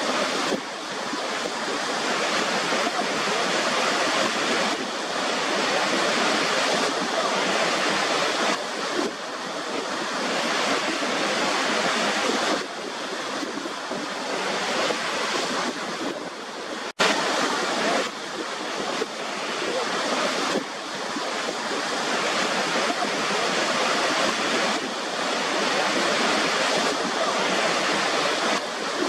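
Steady rushing water of a waterfall, a dense even hiss with slight swells and no tone, briefly cutting out about seventeen seconds in.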